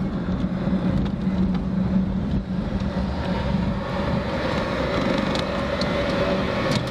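Car driving: a steady engine hum over road noise, the engine note dropping lower near the end as the car slows.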